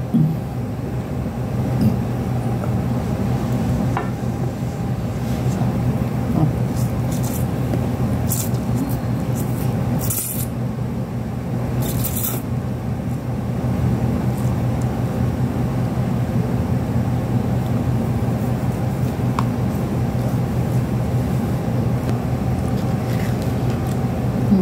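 Steady low mechanical hum, with a few short hissing slurps of instant cup noodles being sucked in about eight, ten and twelve seconds in.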